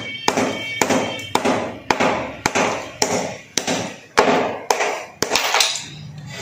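A small hammer striking a clay money pot (gullak), about two knocks a second, each with a short ring from the pot, for about five seconds until the pot breaks open.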